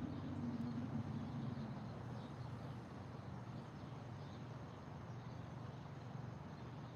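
Faint, scattered bird chirps over a low steady rumble; the rumble is louder in the first couple of seconds, then eases.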